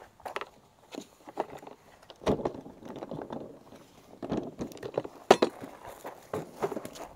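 Plastic retractable hose reel being handled and lifted off its metal wall bracket: a scraping rustle a couple of seconds in, then scattered clicks and knocks of plastic on metal, the loudest a little past halfway.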